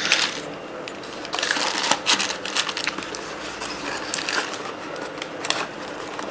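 Light clicks and rustling from handling a boxed set of plastic PBT keycaps, in irregular bursts that come thickest a little over a second in.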